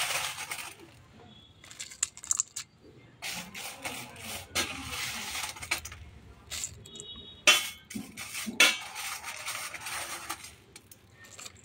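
Dry Maggi instant noodle cakes being broken up by hand and dropped into a nonstick wok of hot spiced water: irregular crackling and rustling, with two louder sharp clicks about a second apart roughly two-thirds of the way through.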